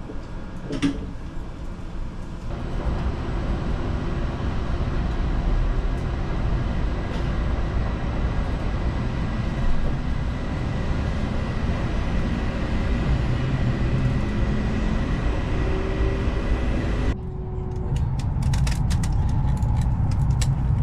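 Inside a Hokuriku Shinkansen car as it pulls out of a station: the train's running noise, a steady low rumble that grows louder a couple of seconds in. Near the end it switches abruptly to a different, quieter cabin background with a few light clicks.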